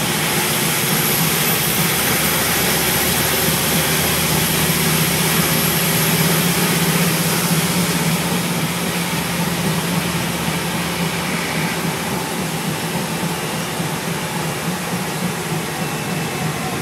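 Scania N230UB single-deck bus under way, heard from inside: a steady engine drone over road and body noise. The engine note strengthens for a few seconds mid-way, then eases off, and a thin high whine runs through the first half.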